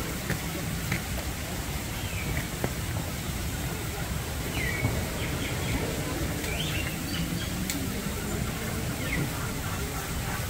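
Outdoor crowd murmur of distant voices, with a few short, high bird chirps scattered through the middle.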